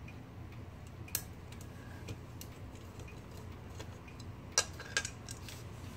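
A few light metallic clicks and ticks from the Olivetti Lettera 32 typewriter's mechanism as a loose part with too much play is worked by hand, over a low steady hum. The sharpest two clicks come close together near the end.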